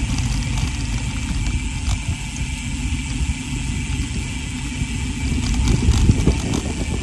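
Wind buffeting the microphone and the tyres rumbling on rough, broken asphalt as a bicycle coasts downhill: a steady, fluctuating low rumble with a hiss over it.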